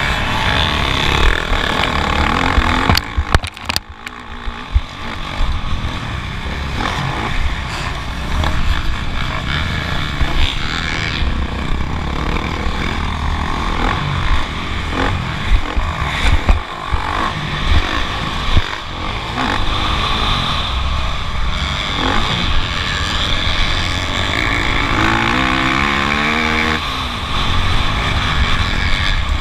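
Motocross bike engine running hard under race load, its pitch rising and falling as the throttle is worked. About three seconds in it briefly drops away with a few sharp knocks, and near the end the revs climb in a series of rising steps.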